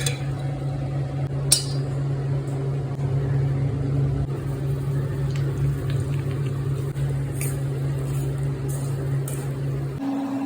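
Steady low hum of a running kitchen appliance, with a few sharp clinks of kitchenware, the loudest about one and a half seconds in. Near the end the hum drops out and a higher steady tone sounds for about a second.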